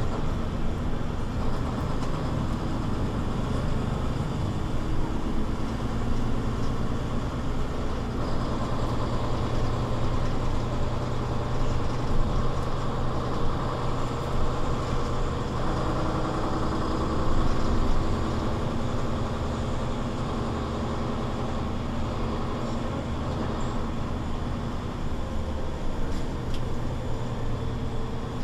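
Mercedes-Benz Citaro C2 city bus under way: its engine and Voith automatic gearbox running as a steady low hum, which grows stronger through the middle and eases again later.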